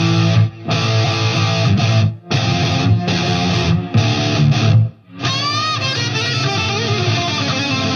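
Outro music led by guitar, with a few short stops in the first five seconds before it plays on continuously.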